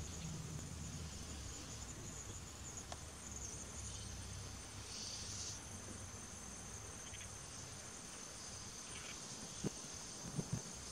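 Faint, steady, high-pitched insect trill, with a few soft clicks near the end.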